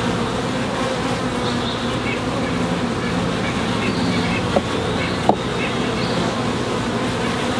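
A swarm of honey bees buzzing densely and steadily around an open hive box, with a couple of short sharp clicks partway through.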